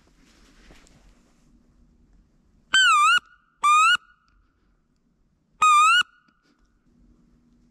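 Three loud, squealing wood duck calls, each about half a second long with a wavering, rising pitch, the last after a pause of about two seconds.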